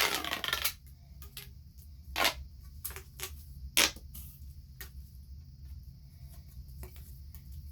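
Plastic pop tube stretched with a short ribbed zipping sound at the start, then scattered sharp clicks and taps of the plastic tubes being handled and joined.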